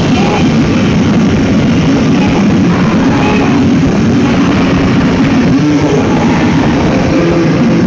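A rock band playing loudly live: electric bass and drums in a dense, noisy wall of sound.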